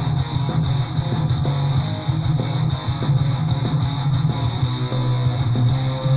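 Melodic power metal recording in an instrumental passage: electric guitars over bass and drums, steady and loud, with no vocals.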